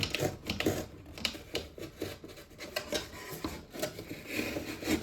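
Knife cutting through double-wall corrugated cardboard, with irregular crackles, clicks and short scraping strokes.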